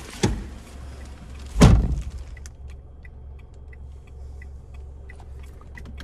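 Renault Triber's 999 cc three-cylinder engine idling, heard from inside the cabin as a faint, steady low hum. A single loud thump about a second and a half in.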